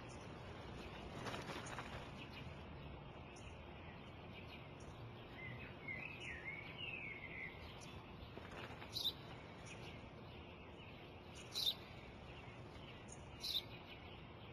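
Faint steady outdoor background with a sparrow chirping: a quick warbling run of chirps about six seconds in, then three single sharp chirps a couple of seconds apart in the second half.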